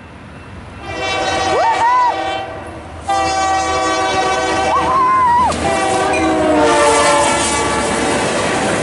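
Union Pacific freight locomotive UP 9992, running long hood forward, sounding its air horn: a short blast, then a long one whose pitch drops as it passes. The locomotive and its wheels then rumble past.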